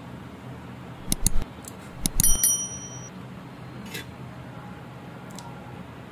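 Tools and parts being handled on a repair bench. A few sharp clicks come about a second in, then a metal clink about two seconds in that rings briefly, and a fainter click near four seconds.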